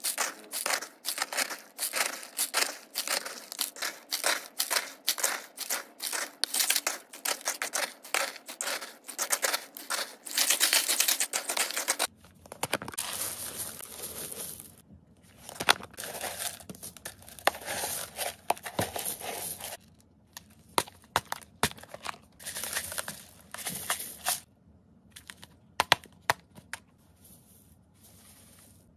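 Dry rodent food mix of pellets, seeds and dried flowers being scooped and poured into clear plastic tubs: a dense patter of small pieces clattering onto plastic and onto the food, with crinkling plastic bags as food is poured from them. About twelve seconds in, the pouring becomes more broken, with short pauses.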